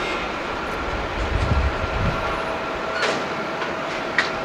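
Airbus A350-900 airliner taxiing close by, its Rolls-Royce Trent XWB engines at idle: a steady hum with a faint whine. A low rumble comes a second or so in, and two sharp clicks follow in the last second and a half.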